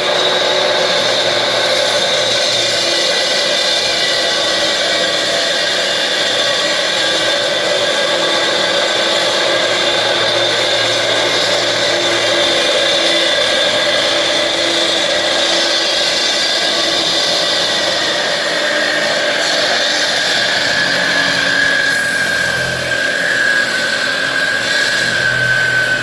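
Electric saw cutting into a wall, motor running with a steady high whine whose pitch sags slightly in the last few seconds.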